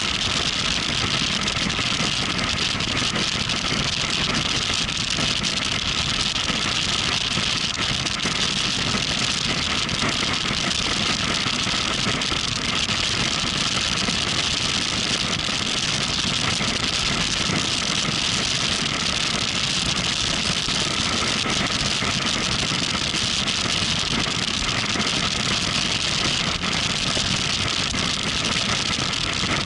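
Motorcycle engine running steadily under an even rushing noise, with no rise or fall in pitch or level.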